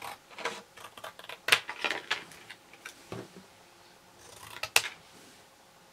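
Scissors snipping through white card: a run of short crisp cuts, the loudest about one and a half seconds in, then a last sharp snip near the five-second mark.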